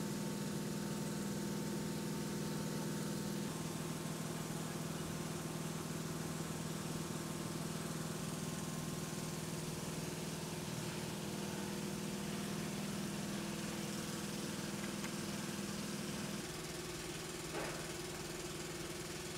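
A machine running steadily with a low hum, its pitch shifting slightly a few seconds in and again near the end.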